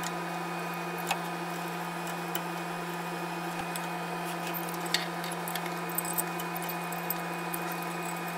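Faint, scattered metallic clicks and clinks of steel bolts, washers and a homemade puller plate being handled and fitted onto a crankshaft sprocket, over a steady hum.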